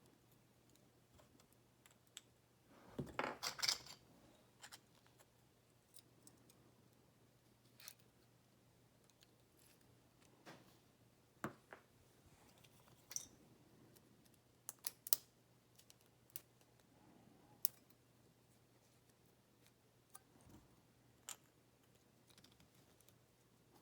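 Small metal parts of a Sesamee 533 padlock being handled during disassembly. About three seconds in there is a short rattling scrape, followed by scattered sharp clicks and taps.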